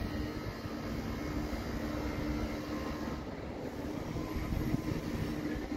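Steady low hum over a rumbling noise on a railway station platform, with a faint droning tone; no train passes on the nearby tracks.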